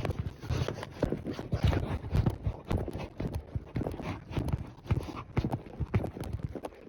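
A ridden horse's hooves striking the ground in a steady series of clops and thuds.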